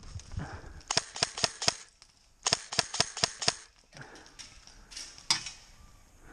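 Airsoft gun shots: two quick strings of sharp snapping shots about a second apart, then a single shot near the end.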